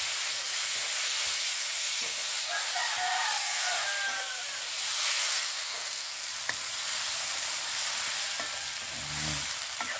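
Wild field mushrooms frying in hot oil in a wok: a steady sizzle, with a wooden spatula stirring and now and then tapping or scraping the pan.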